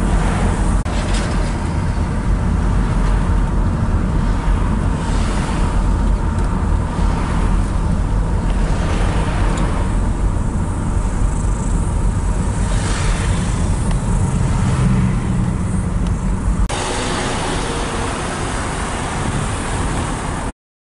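Road noise inside a moving car's cabin: a steady low rumble of tyres and engine, with the brief whoosh of oncoming vehicles passing a few times. Near the end the sound changes abruptly to a lighter, steadier noise, then cuts off just before the end.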